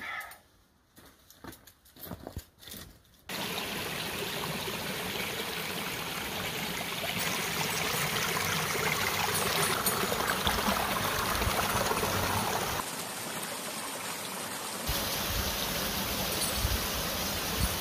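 A few faint knocks, then running water from a shallow stream trickling over stones, a steady rush that starts abruptly a few seconds in.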